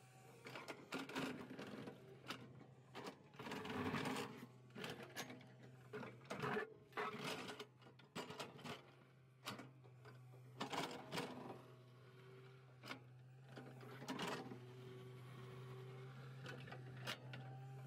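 L&T-Komatsu PC200 hydraulic excavator's diesel engine running with a steady low hum while its toothed bucket digs and scrapes through stony soil, with irregular crunching and clattering of dirt and rocks.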